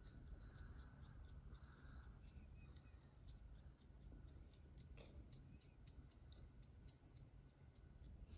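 Faint, crisp scratching of long press-on fingernails through hair on a dandruff-flaked scalp, a quick run of short strokes at about four a second.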